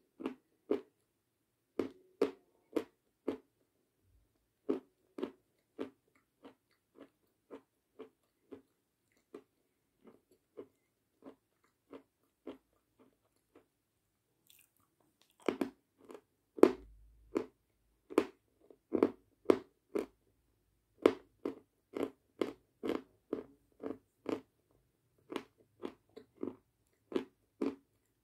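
Close-up crunching of a lump of white Kramatorsk chalk being bitten and chewed, in short crisp crunches about twice a second. There are brief lulls near the start and about halfway, then a louder run of bites and chewing.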